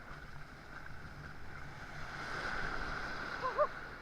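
Ocean surf and water washing around a person wading, with wind on the microphone; the wash swells about two seconds in. Near the end come two short vocal cries.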